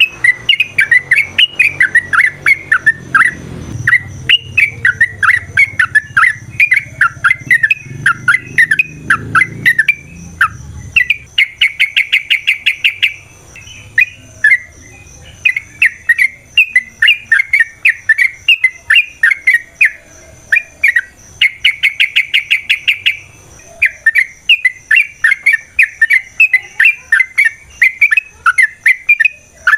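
Yellow-vented bulbul (trucukan) singing without pause in bubbly, chattering phrases. Twice, about 11 and 21 seconds in, it breaks into a long, rapid, even trill, the 'ropel'. A low rumble lies under the first third.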